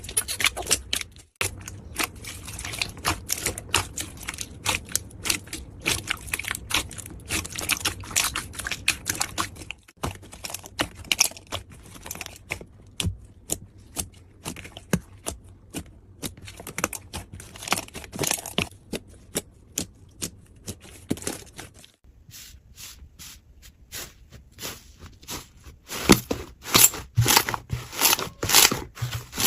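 Slime being squeezed and worked by hand, giving a dense run of small crackling clicks and pops across a few cut-together clips. Near the end the clicks turn sharper, louder and more spaced, about two or three a second.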